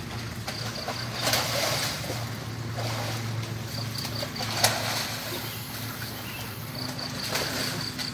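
Outdoor ambience: a steady low hum runs throughout, with short trains of rapid high insect chirps in three spells. Soft splashes of water come from people moving in a shallow drainage ditch, and there is one sharp click just over halfway.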